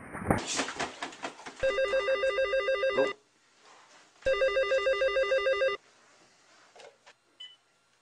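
A rapid run of knocks and thumps, then a telephone rings twice with an electronic warbling trill that flutters between two notes. Each ring lasts about a second and a half.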